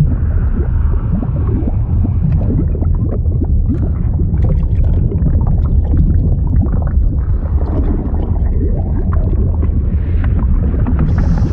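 Flowing-liquid sound effect: a deep, steady rumble with many small bubbling crackles over it.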